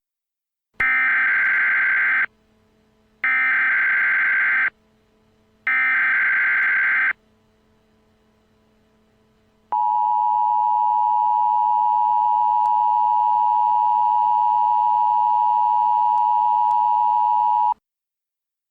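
Emergency Alert System SAME header: three equal bursts of warbling digital data tones, each about a second and a half long. These are followed by the EAS two-tone attention signal, a steady two-note tone held for about eight seconds that cuts off abruptly, announcing that an emergency alert message follows.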